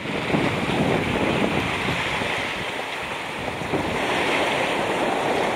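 Steady wind buffeting the microphone, with the wash of surf along the shoreline beneath it.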